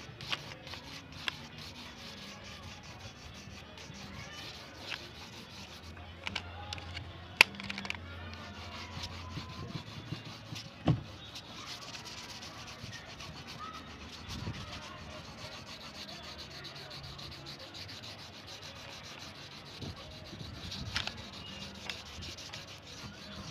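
Oil pastel crayon rubbing back and forth on paper as a sky is shaded in: a steady scratchy scraping of strokes, with a couple of sharp clicks about a third and halfway through.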